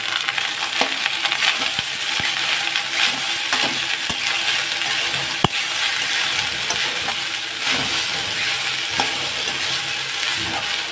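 Leftover cooked rice sizzling steadily as it fries in a kadhai with onion and a little oil, stirred and turned with scattered clicks of the spoon against the pan, the sharpest about halfway through.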